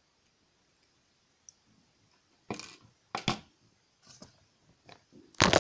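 Sharp clicks and taps of pliers working copper wire, scattered through the second half, with the loudest click near the end.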